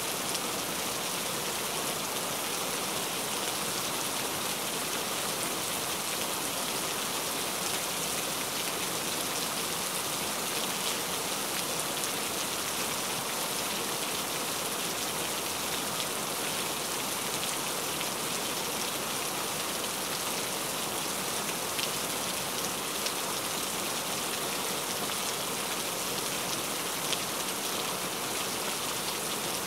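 Cauliflower kababs shallow-frying in hot oil in a non-stick pan: steady sizzling with fine crackle and a couple of sharper ticks.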